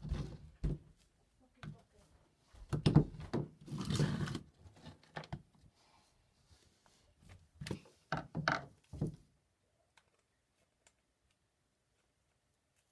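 Hammer and screwdriver knocking and scraping against a broken digital camera on a wooden workbench, in three clusters of blows, the loudest about three to four seconds in. The knocking stops about nine seconds in.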